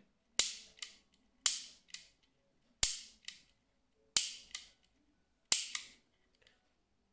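Trigger mechanism of an A.P.S. Silver Edge Extreme version 3 airsoft AEG gearbox, set to semi, worked five times about 1.3 seconds apart: each time a sharp click followed by a softer one. The clicking happens only on semi, which the owner puts down to the fire selector not being switched over properly.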